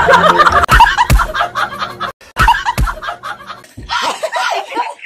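Two men laughing loudly and hard over background music, with several heavy thumps of hands slapping a table. The music stops shortly before the end, where laughter goes on.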